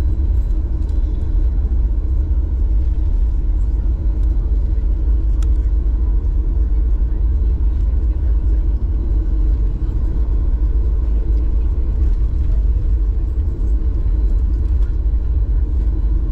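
Deep, steady rumble inside the cabin of a Boeing 737 airliner taxiing on the ground: jet engine noise and wheels rolling over the taxiway.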